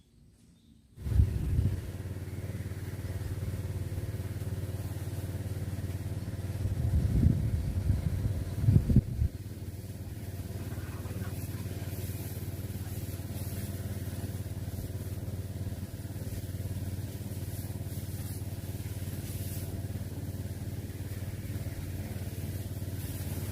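Hitachi excavator's diesel engine running steadily, coming in abruptly about a second in, with a few louder surges around the middle as it works.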